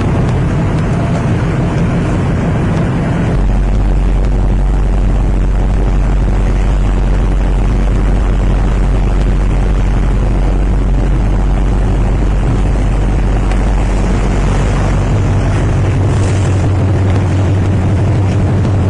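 Steady, loud, deep rumble with a hiss over it, typical of a ship's engine running underway. It grows deeper and stronger about three seconds in and shifts a little higher near the end.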